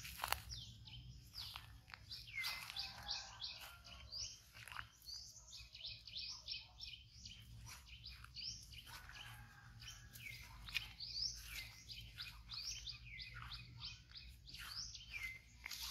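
Birds chirping over and over with short, falling calls, several overlapping. A soft rustle of footsteps through grass comes and goes.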